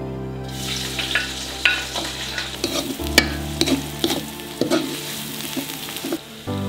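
Sliced onions, chillies and garlic sizzling as they are stir-fried in a wok, starting about half a second in. A spoon scrapes and taps against the pan many times as it turns them.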